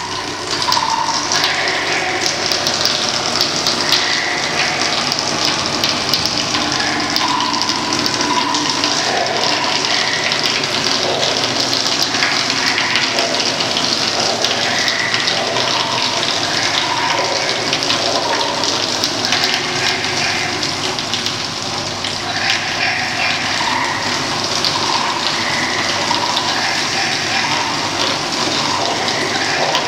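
Water poured from raised metal buckets, gushing and splashing steadily into metal buckets and a plastic box below, with short ringing tones recurring every second or two.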